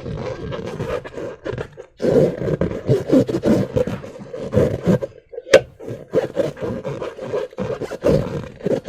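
Rubber balloons and slime being worked by hand: a rough, rasping rubber sound over a steady low buzzing tone, stopping briefly twice, with a couple of sharp clicks.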